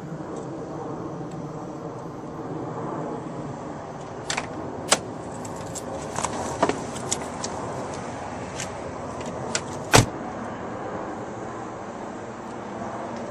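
Scattered clicks and knocks of someone moving about inside a Citroën car. About ten seconds in a car door shuts with one heavy thud. A steady hum of street noise runs underneath.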